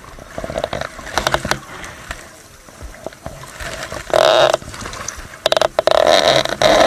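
Fishing reel being cranked in a few short spurts, its gears giving a rapid clicking whir, as the line is wound back in after breaking at the knot.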